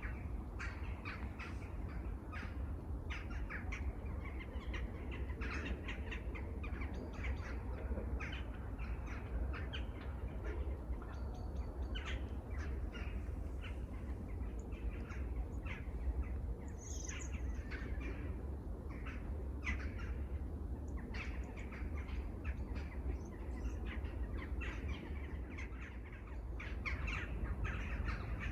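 Many birds calling in an unbroken chorus of short, repeated calls, with one higher call about seventeen seconds in, over a steady low rumble.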